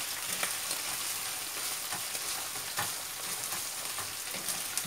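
Minced beef and onions with pepper and tomato paste sizzling in oil in a frying pan over high heat, stirred with a wooden spoon, which scrapes faintly against the pan a few times.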